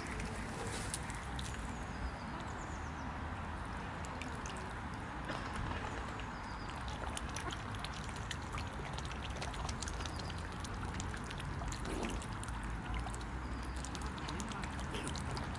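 Mute swans dabbling at the water's edge: many quick wet clicks and small splashes as their bills work in the water, over a steady background hiss. A few faint high chirps come through now and then.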